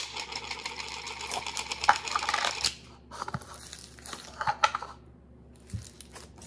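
Lavender slime being pulled from its plastic tub and squeezed in the hands, giving a dense run of small clicks and crackles for the first two and a half seconds, then sparser crackles as it is kneaded and pressed flat.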